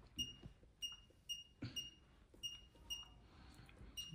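Short, identical electronic key beeps from the MAE Cronosonic ultrasonic pulse velocity tester's keypad, about seven of them at roughly half-second intervals, one for each button press, as the probe distance is stepped up to 7.5 cm. Faint knocks of a finger on the keys come between the beeps.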